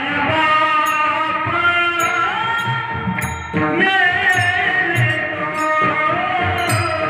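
Marathi devotional bhajan: male voices singing a sliding, ornamented melody over a steady sustained drone, with regular low drum strokes and bright clicks of small hand cymbals keeping the beat.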